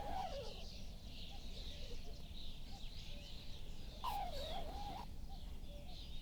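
Taut fishing line whistling with a wavering pitch as a hooked fish pulls on it. It trails off near the start and sounds again about four seconds in, with birds chirping throughout.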